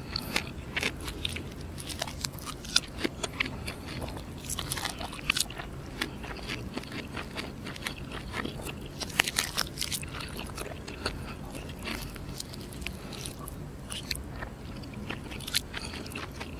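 Fried chicken being torn apart by hand close to the microphone: an irregular run of small crackling, wet clicks as the skin and meat pull away.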